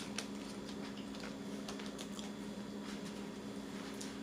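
Soft, scattered clicks and rustles of people eating and handling food, over a steady low hum.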